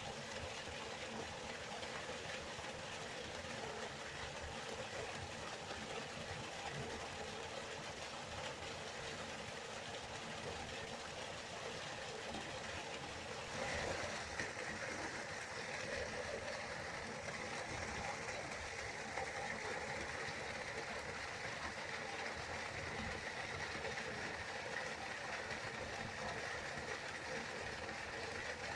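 River water flowing steadily, a continuous rushing noise. About halfway through, the sound shifts and becomes brighter and hissier.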